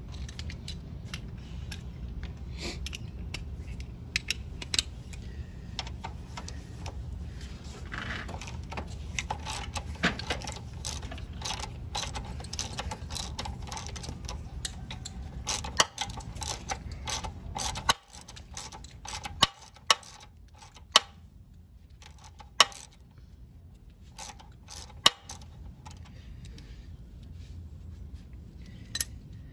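Socket ratchet clicking in quick runs as a rusty bolt at the rear axle of a 1968 Honda CT90 is turned out. In the second half come a few sharp, separate metal clinks. A steady low hum runs underneath.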